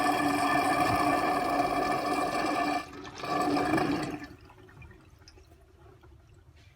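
Washbasin drain emptying with a loud, steady, tone-like abnormal noise, the sign of a poorly draining waste pipe. The noise breaks off briefly near three seconds, comes back, then dies away about four seconds in.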